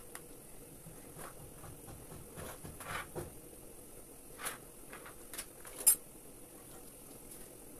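Metal spoon spreading jam over raw dough in a metal baking tray: soft sticky scrapes and a few light clicks, with one sharper click about six seconds in.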